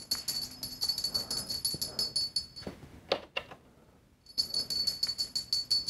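Small bell on a feather wand cat toy jingling as the toy is shaken, with a few soft knocks about three seconds in and a brief break in the jingling just after.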